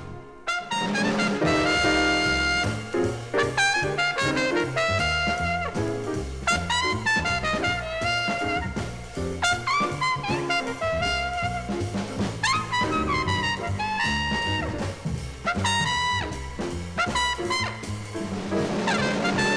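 Jazz record with brass horns over a drum kit, played from vinyl on turntables. A brief break about half a second long comes right at the start, then the band plays on.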